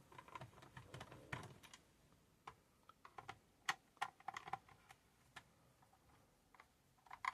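Faint, irregular clicks and ticks of a small screwdriver undoing the small screws of a plastic power strip housing.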